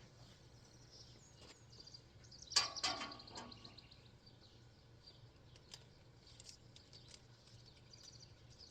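Birds chirping over a low steady hum, with one sharp knock about two and a half seconds in that rings briefly.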